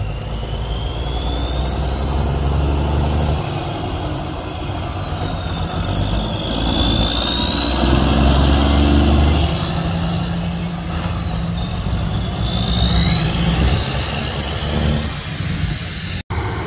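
Cabover semi tractor's straight-piped diesel engine pulling away and working up through the gears, its low exhaust note stepping up and down with each shift. Over it a high turbo whistle rises and falls several times.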